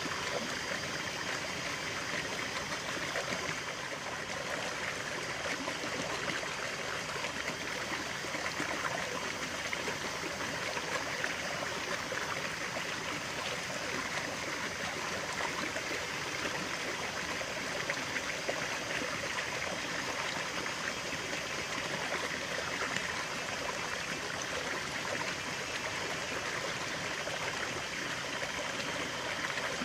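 Running water of a stream, a steady splashing flow that never lets up.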